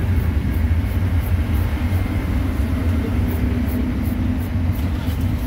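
Steady low rumble of background road traffic.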